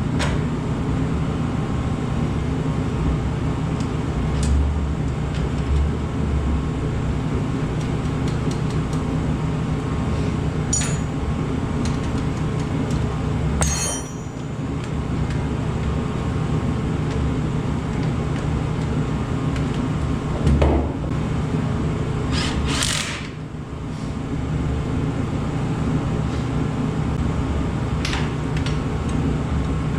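Steady low mechanical hum throughout, with a few light metallic clinks and taps of hand tools and parts as a tie rod is fitted to an ATV's steering.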